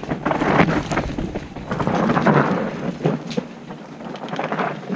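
Mountain bike tyres crunching and rattling over a rocky dirt trail, with many small clicks and knocks, louder for the first couple of seconds and then easing off.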